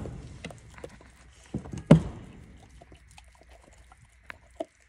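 Dog gnawing a raw meaty bone on a wooden plank floor. Two loud cracks come about one and a half to two seconds in, then a few faint clicks near the end.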